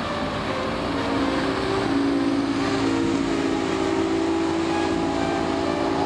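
Speedboat's inboard engine running at high speed, a steady drone over the hiss of the hull and spray on the water.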